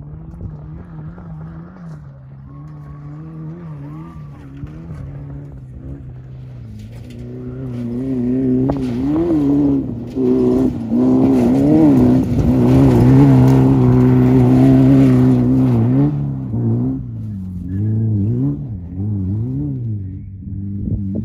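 Class 11 VW Beetle desert race car's air-cooled flat-four engine revving as the car passes, its pitch rising and falling again and again with the throttle. It grows louder from about a third of the way in, is loudest around the middle, then fades.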